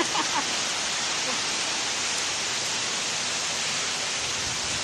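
Hailstorm: hail and rain falling steadily on paving stones, a dense, even hiss with no single hits standing out.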